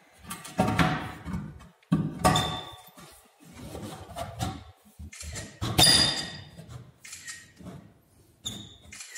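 Aluminium sliding-door top track clanking and knocking as it is handled and pressed into place against the door frame. There are several sharp knocks with a short metallic ring, the loudest about six seconds in.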